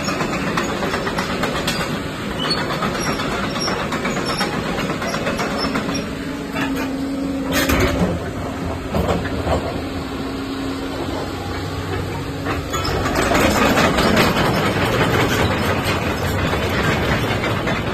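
Hyundai 225LC-9T excavator running, its engine and hydraulics working steadily, with a sharp knock about eight seconds in and the noise getting louder from about thirteen seconds.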